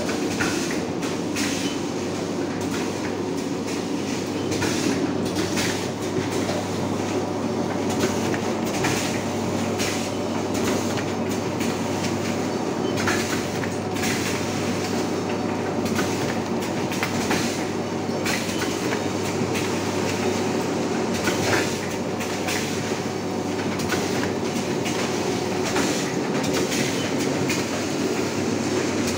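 Fully pneumatic vertical form-fill-seal pouch packing machine running on 500 g detergent packs: a steady machine hum with sharp clacks repeating about once a second or so as the air-driven sealing jaws close and cut each pouch.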